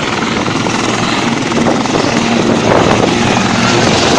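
A helicopter's rotor and turbine engine running loud at close range, a steady whirring chop that grows slightly louder over the few seconds.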